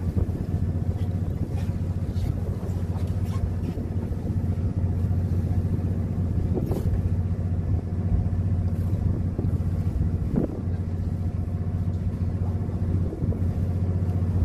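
Fishing boat's engine running steadily with a low, even hum.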